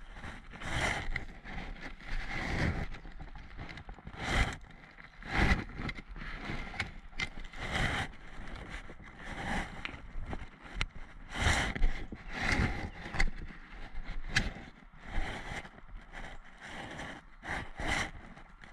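Footsteps on a dirt woodland trail, with rustling of clothing and gear, in an uneven rhythm of soft crunches about one to two a second.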